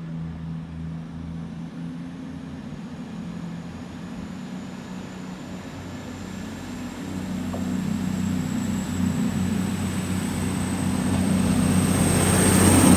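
CrossCountry Class 221 Voyager diesel train running, with a steady low engine drone and a thin high whine that slowly rises in pitch. The sound gets louder over the last few seconds.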